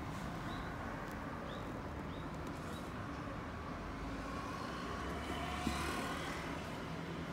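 A vehicle passing by, growing louder and peaking about five to six seconds in over steady background noise, with a few short, faint high chirps in the first three seconds.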